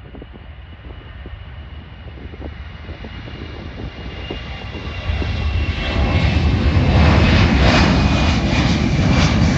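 Boeing C-17 Globemaster III's four turbofan engines at takeoff power as the jet rolls, lifts off and climbs away: a steady whine over a deep rumble that grows much louder about five to six seconds in.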